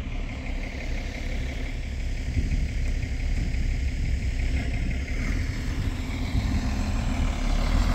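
Diesel engine of a Unimog off-road tour bus running at a steady low rumble, gradually getting louder.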